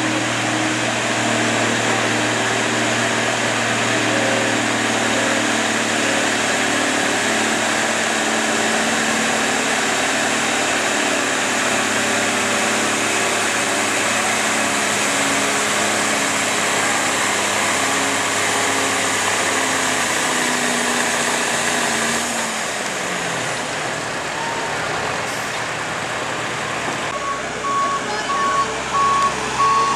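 International Harvester four-wheel-drive farm tractor's diesel engine working hard pulling a weight-transfer sled, its note sagging slowly as the load builds, then winding down about 22 seconds in as the pull ends. Near the end a reversing beeper starts sounding in even pulses.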